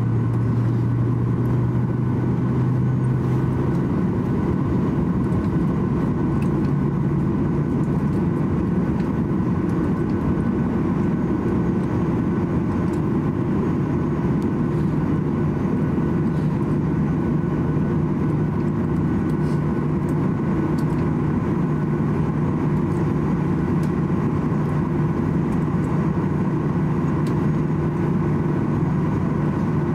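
Steady apron noise of a Boeing 787 airliner being pushed back by a towing tractor: a low engine drone that rises in pitch about four to six seconds in, with a steady whine of high tones above it.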